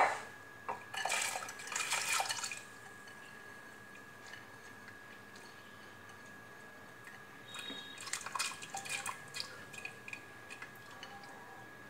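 Soaked arhar (toor) dal sliding out of a glass bowl and pattering wetly into the water in a pressure cooker. It comes in two spells: about two seconds of it starting a second in, then a second run of drips and small splashes around eight seconds in.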